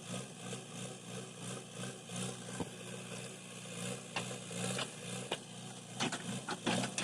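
JCB backhoe loader's diesel engine running steadily, its hum rising and falling slightly, with a few sharp knocks or clanks in the second half.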